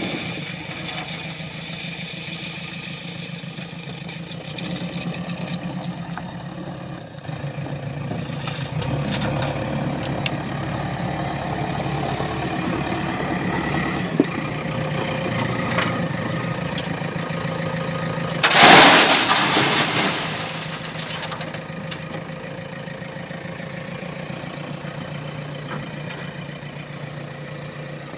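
Diesel engine of a JCB 3DX backhoe loader running steadily under working load, rising for a stretch in the middle. A sharp knock comes about halfway through, and a loud rushing crash lasting about a second and a half follows about two-thirds of the way in.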